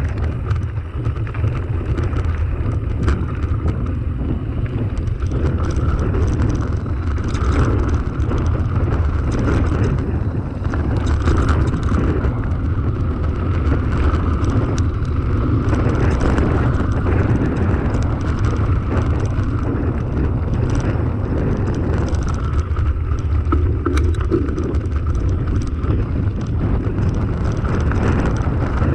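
Mountain bike ridden over a gravel and dirt track: steady wind rumble on the camera microphone, with tyres crunching on loose stones and frequent small knocks and rattles from the bike over bumps.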